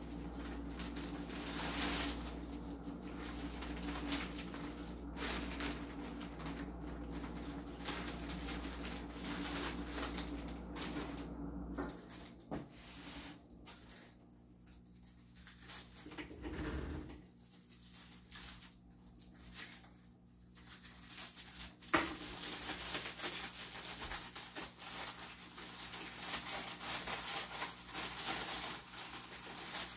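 Tissue paper and plastic packaging rustling and crinkling as they are handled and unwrapped, with a few small knocks. A low steady hum in the background stops about twelve seconds in.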